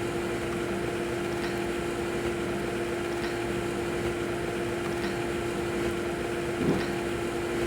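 Steady machine hum with one constant tone, unchanging throughout, with a few faint clicks of small parts being handled.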